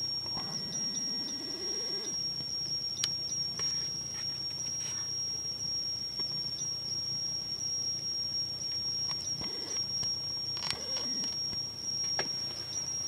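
A steady high-pitched whine at one unchanging pitch, with a few faint clicks and rustles. In the first two seconds a low sound rises steadily in pitch.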